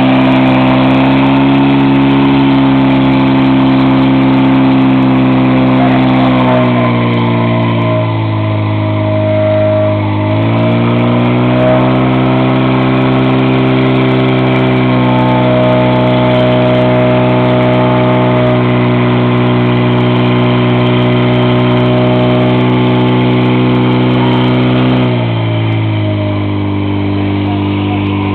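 Portable fire pump's engine running at high speed, driving water through the attack hoses. It eases off for a few seconds, picks back up to full speed, then settles to a lower speed near the end.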